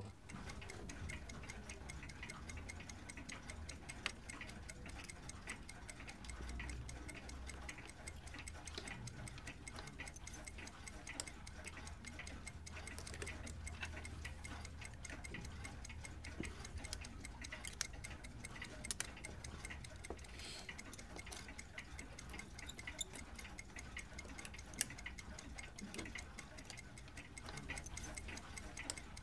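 Mechanical clocks ticking quietly, with scattered sharper clicks over a low steady hum.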